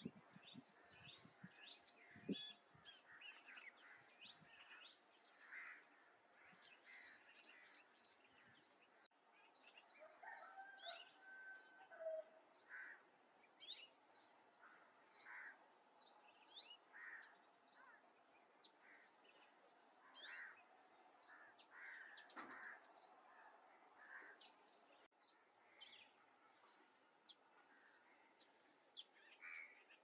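Faint bird chorus: many short chirps and calls from several birds, scattered irregularly, with a couple of brief whistled notes about ten seconds in, over a steady thin high tone.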